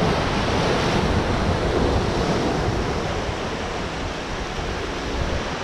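Sea surf breaking and washing over rocks, a steady rush of water, with wind rumbling on the microphone.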